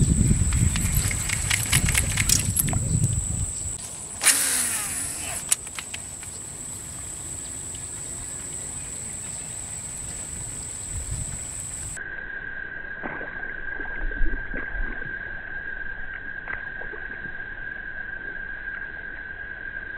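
Wind rumbling on the microphone over a steady high insect drone, broken about four seconds in by a sharp splash of a snakehead striking at a rubber frog lure on the surface. From about twelve seconds the strike is played again slowed down, lower and muffled.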